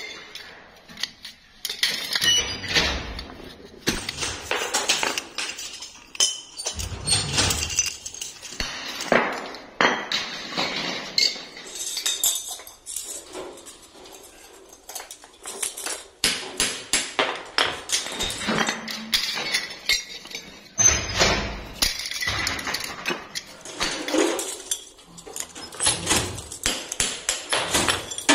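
Metal tractor air-filter parts, cast spoked rings and short metal sleeves, clinking and clattering against each other as they are handled and sorted, with many quick knocks and a few heavier clanks.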